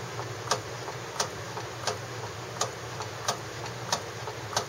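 Rotary microtome being cranked steadily through paraffin sections, giving a sharp click about every 0.7 seconds with fainter clicks between. Only the paraffin ahead of the specimen is being cut at this stage.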